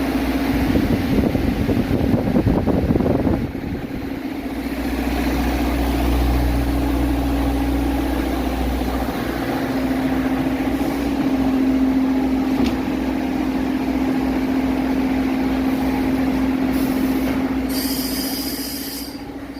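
A machine motor running with a steady hum, rougher in the first few seconds and fading out near the end.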